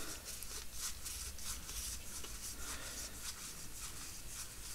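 Yu-Gi-Oh trading cards being handled and sorted: quiet, quick papery rubs as the cards slide against one another, a few a second.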